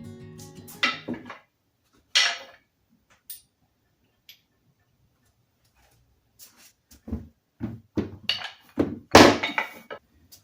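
Guitar music ending about a second in, then scattered knocks and thunks of hard objects being handled and set down, coming closer together and louder in the last few seconds.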